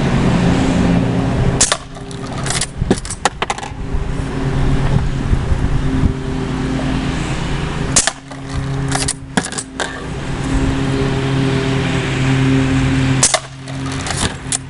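Three shots from a Umarex Legends Cowboy lever-action CO2 BB rifle, about five to six seconds apart. Each shot is followed by a quick run of metallic clicks as the lever is worked and the dummy cartridge shell ejects. A steady low hum runs underneath.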